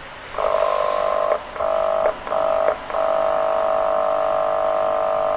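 Train horn sounding three short blasts and then one long, steady blast.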